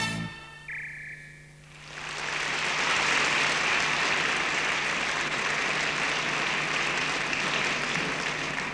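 A large concert audience applauding. The clapping swells in about two seconds in and then holds steady, over a steady low hum.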